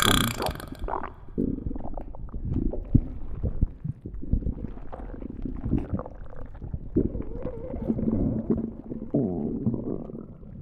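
Stomach growling and gurgling: an uneven run of low rumbles and small churning pops, with a longer drawn-out growl near the end that fades away.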